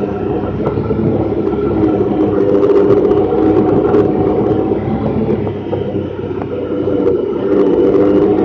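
Honda Pioneer 1000-5 side-by-side's parallel-twin engine running steadily as the vehicle drives slowly over dirt, heard from inside the open cab, with the note easing slightly around six seconds in and picking up again near the end.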